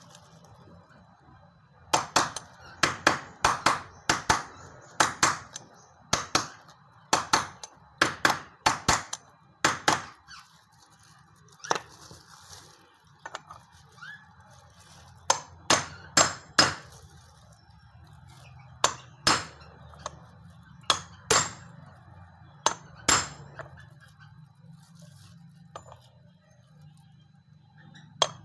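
Hammer blows on a 30 mm socket used as a drift, tapping a new bearing into its housing in place of a press. Sharp metallic knocks come in irregular runs of several strikes with pauses between them.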